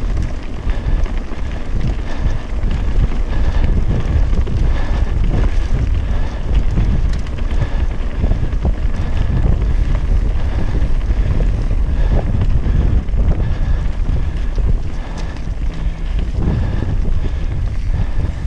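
Wind buffeting a helmet-mounted camera's microphone on a mountain bike descent, a steady heavy rumble, with the crunch and rattle of tyres over loose gravel and stones.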